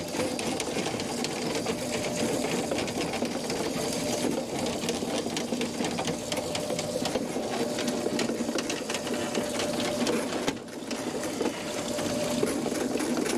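Cordless drill spinning a Ridgid K9-204 FlexShaft drain-cleaning cable inside a clogged kitchen sink drain: a steady motor hum with fast rattling, dipping briefly about ten seconds in.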